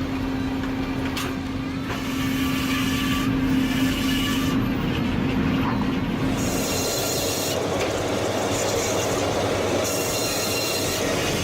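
An old sawmill running and cutting oak logs into planks: a steady machine hum that gives way about seven seconds in to a rougher rush of cutting noise with bursts of high hiss.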